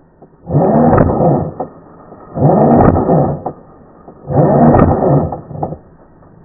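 Heavy, voiced breathing close to the microphone: four long, loud breaths about two seconds apart.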